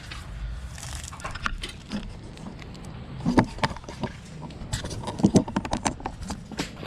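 Irregular light clicks and clattering knocks of hard parts being handled, with sharper knocks in two clusters near the middle and toward the end. No steady motor or blower running is heard.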